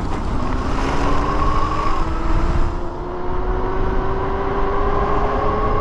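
Dual Bafang hub motors on a 72-volt fat-tire e-bike whining, the pitch rising slowly and evenly as the bike gathers speed. Heavy wind rumble on the microphone runs underneath.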